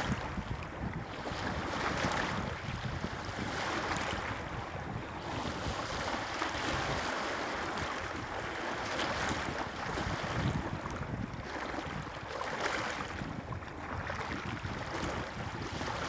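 Lake waves washing onto a rocky shore, swelling and easing every two to three seconds, with wind buffeting the microphone.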